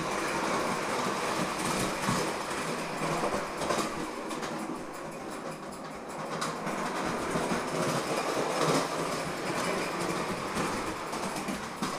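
Bowman 234 live-steam tinplate locomotive running steadily around a loop of tinplate track, its wheels rattling and clicking over the rails and joints.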